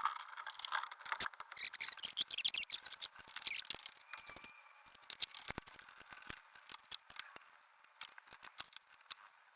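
Adept No. 2 hand shaper being handled: a run of sharp clicks and light scraping of metal, busiest over the first few seconds, then thinning to scattered clicks.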